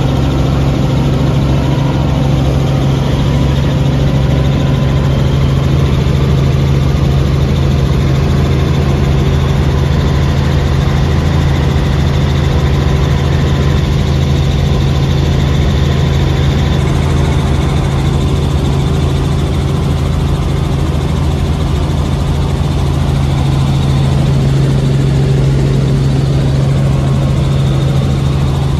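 Light helicopter in flight, heard from inside the cabin: engine and rotor running with a steady, loud low drone.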